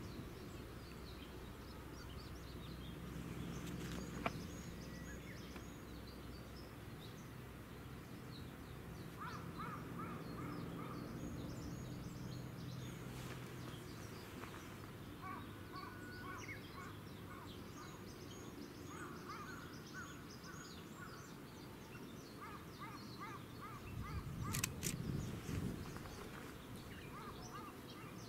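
Outdoor ambience with several small birds calling and singing in short repeated notes, over a low steady rumble. A sharp click comes about four seconds in, and a brief louder rush of noise comes near the end.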